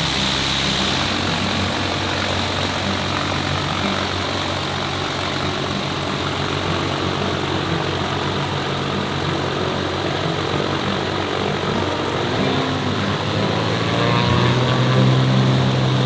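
A light propeller airplane's piston engine running steadily, then growing louder about fourteen seconds in as the power comes up.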